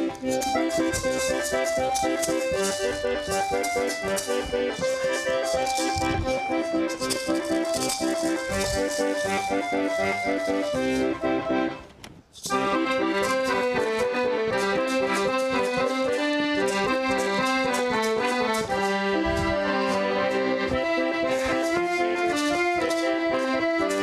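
Lively instrumental music with held melody notes over a quick, steady percussive rhythm; it cuts out for a moment about halfway through, then carries on.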